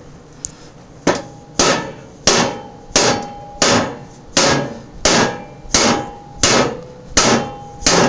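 Steady hammer blows, about eleven of them at roughly one every 0.7 s starting about a second in, each with a short metallic ring, struck on a bolt threaded into the end of a snowblower's rusted impeller shaft. The blows are driving the seized shaft out through its bearing, and it is moving slowly.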